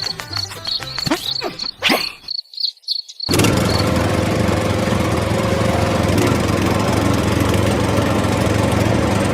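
A short stretch of rhythmic music with repeated high chirps breaks off into about a second of silence, then a small motor starts running steadily with a dense, even hum.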